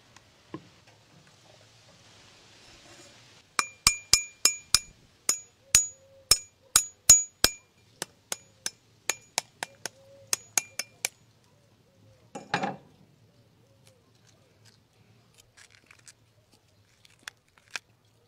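Ostrich eggshell being tapped with a hard tool to crack it: about twenty sharp, ringing clinks over some seven seconds, starting a few seconds in. Then comes a short crunch as the shell breaks, followed by faint small crackles of shell.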